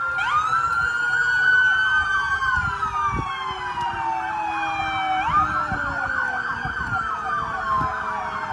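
Police car sirens wailing, overlapping: one rises and falls slowly and jumps back up about five seconds in, over a lower siren whose pitch slowly falls.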